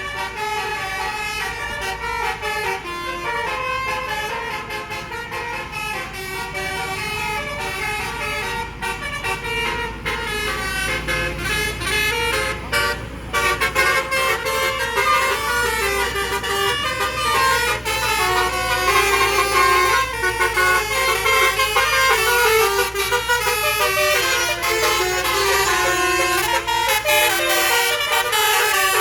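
Multi-tone 'telolet' bus horns playing a fast melody of quickly changing notes, over a low engine rumble. The horns get louder after a brief dip about thirteen seconds in.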